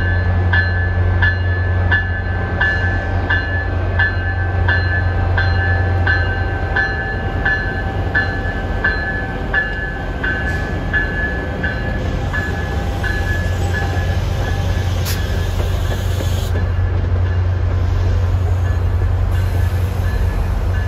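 NJ Transit ALP45DP locomotive running with a steady low hum while its bell rings about twice a second. The ringing fades out about two-thirds of the way through.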